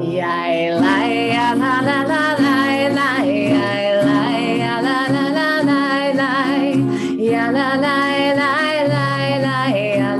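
A woman singing a wordless melody with vibrato over a strummed acoustic guitar.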